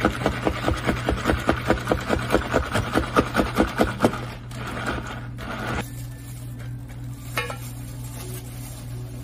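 Ice cubes rattling and scraping in a plastic cup of blueberry soda as it is stirred briskly with a long stirrer, about five strokes a second, stopping about four seconds in. A short, softer hiss follows, then a single light knock near the end.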